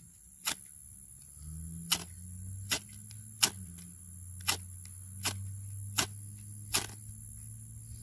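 A knife blade scraped down a small ferrocerium (ferro) rod in short, sharp strokes, about eight of them roughly one a second, striking sparks onto dryer-lint tinder. A faint low steady hum sits underneath.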